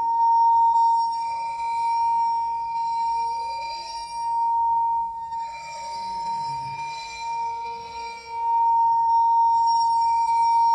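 A single high ringing tone held steadily throughout, glass-like, swelling and fading in loudness several times without changing pitch.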